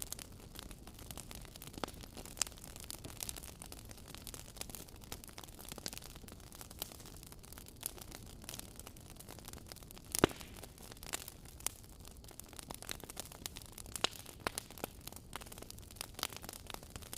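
Wood fire burning in a fireplace: a soft steady hiss under irregular crackles and pops, with one sharper snap about ten seconds in.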